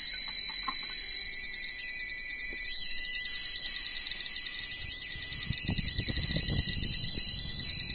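Non-contact voltage tester pen sounding a steady, high-pitched electronic beep as it picks up the strong field around an inverter powered beside a spark-gap Don Smith coil. Some low rustling from handling comes in from about five to seven seconds in.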